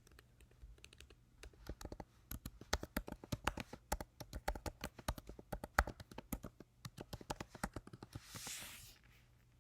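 Typing on a computer keyboard: a run of irregular, quick key clicks, with a brief hiss about eight seconds in.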